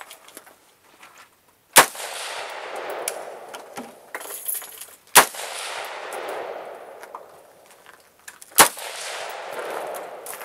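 A Yankee Hill Machine YHM-15 AR-15 carbine fired three times as slow aimed shots, about three and a half seconds apart. Each sharp crack is followed by a long echo that dies away over about two seconds.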